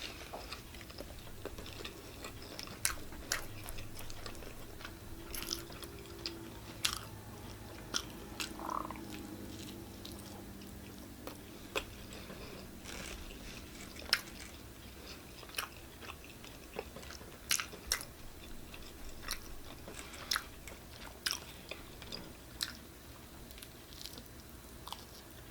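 Eating sounds: chewing and biting into pizza, with scattered short, sharp mouth clicks and smacks.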